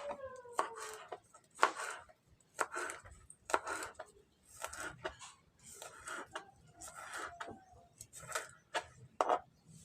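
Knife chopping spring onions on a cutting board in short, irregular strokes, roughly two a second.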